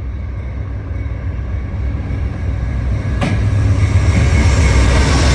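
Amtrak Piedmont diesel passenger train approaching and passing, a low rumble that grows steadily louder, with one sharp knock about three seconds in.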